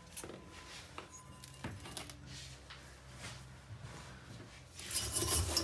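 Faint small clicks of handling parts, then about five seconds in a loud harsh scraping starts: a tool scraping clean the clogged burner of a Planar 44D diesel air heater.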